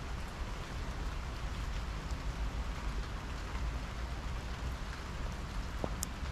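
Steady rain falling on a wet slatted patio table and garden plants, with a couple of sharp single drop ticks near the end.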